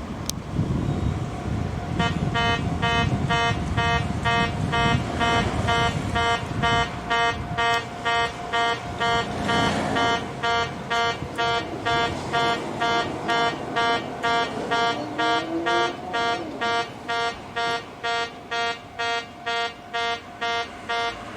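Old-style railway level-crossing warning buzzer with a trumpet-like, horn-like tone, pulsing about twice a second, starting about two seconds in; it signals that a train is approaching the crossing.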